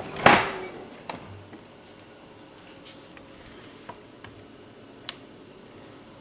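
Handling noise at a refrigerator: one loud knock a quarter second in, then a few scattered light clicks and taps. The steady fan hum that ran before has stopped.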